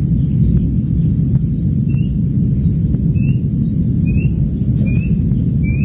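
A bird repeating short chirps, a higher falling note and a lower rising one, one or two a second, over a steady high drone of insects. Underneath runs a steady low rumble of wind on the microphone.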